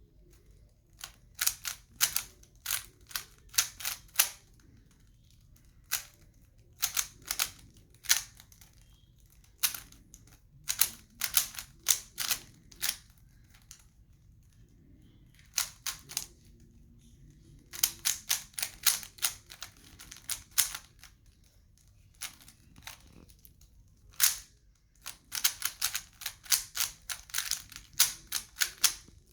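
3x3 Rubik's Cube being turned fast: the plastic layers click and clack in quick runs of turns, broken by short pauses of a second or two.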